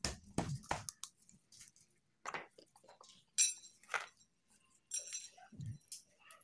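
Scattered metallic clinks and taps of hand tools and engine parts being handled, a couple of them ringing briefly, with one dull thump near the end.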